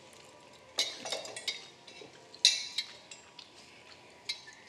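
Scattered clinks, clicks and crackles of dishes and cutlery as people eat at a table, the loudest about two and a half seconds in.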